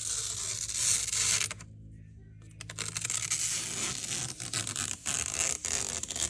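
Protective plastic film being peeled off an alarm clock's face: a crackling, tearing rustle in two long pulls, with a pause of about a second after the first.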